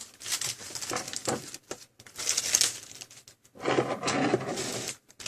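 Crinkling and rustling in several short, irregular bursts as a roll of 3M double-sided adhesive tape and its wrapping are handled.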